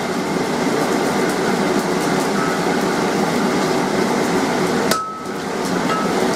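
Hammer blows on a glowing bar of 16 mm square mild steel on an anvil, over a steady rushing noise. About five seconds in there is a clear ringing strike, and another about a second later.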